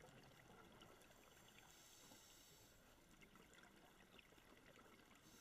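Near silence: faint underwater ambience picked up through a GoPro's waterproof housing, a low hiss with scattered small clicks and a brief higher rush of hiss about two seconds in.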